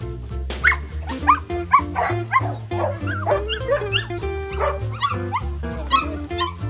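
Dogs barking and yipping in quick, short calls over steady background music.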